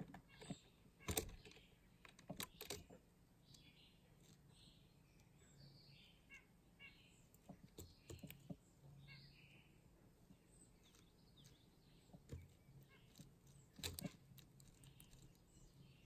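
A red-bellied woodpecker pecking in seed on a wooden feeder tray: scattered sharp taps and clicks, the loudest about a second in, around two and a half seconds in and near the end. Faint bird chirps in the background throughout.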